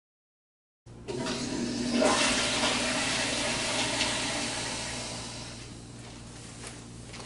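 A toilet flushing in a tiled restroom. The rush of water starts suddenly about a second in, is loudest a second later, then fades slowly over several seconds.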